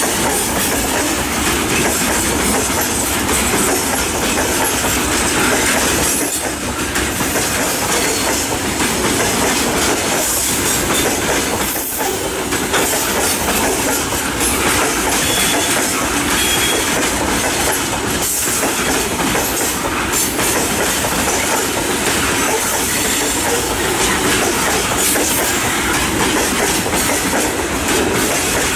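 Freight train of open gondola wagons rolling past close by, a steady loud rumble and rattle of the wagon wheels running over the rails.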